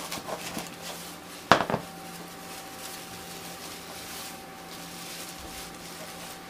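Handling of scissors and a plastic-wrapped cup on a wooden table: a few light clicks, then a sharp clack with a smaller one right after about a second and a half in, then soft rustling of a plastic bag being pulled off the cup.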